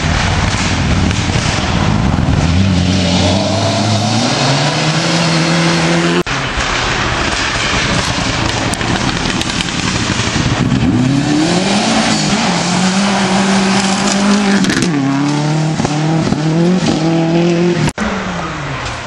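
Rally cars at full throttle on a gravel stage, engines revving and climbing in pitch through a series of quick gear changes. The sound breaks off suddenly twice as one car's run gives way to the next.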